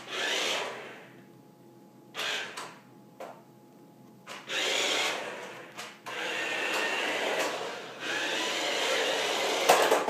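i-Racer Bluetooth toy car's small electric drive motors whirring as it is driven in spurts: short bursts at first, then running almost continuously through the second half.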